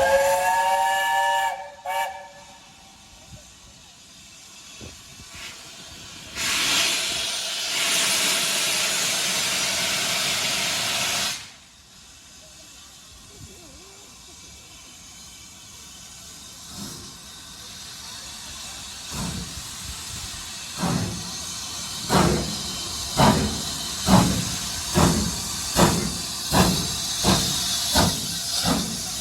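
Steam locomotive giving a short whistle of several notes, then blowing off a loud hiss of steam for about five seconds. It then starts away, its exhaust beats growing louder and quickening from about one a second to two a second as it gathers speed.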